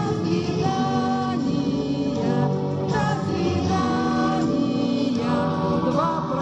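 Music playing: a melody of held notes, likely a song whose sung words the recogniser did not catch.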